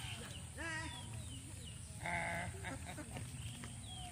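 A farm animal bleating twice, each call short and quavering, the second louder, with birds chirping and a steady low background rumble.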